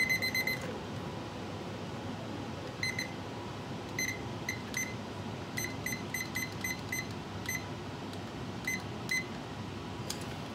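Digital kitchen timer beeping as its buttons are pressed to set ten minutes: a quick run of high beeps at the start, then about a dozen single short beeps at irregular gaps.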